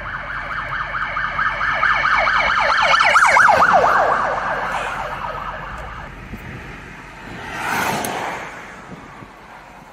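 Police siren on a Ford Police Interceptor Utility in rapid yelp mode, about four or five sweeps a second. It grows loudest as the SUV passes about three seconds in, then fades away. A short rushing swell of noise follows near the end.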